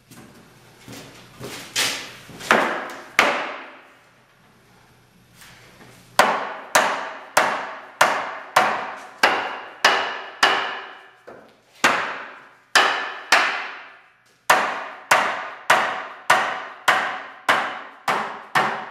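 Hammer blows on log pieces, driving the back rails of a log Adirondack chair down onto their tenons. Each blow is sharp with a short ring. A few blows come first, then a pause of about two seconds, then a long even run at about two blows a second.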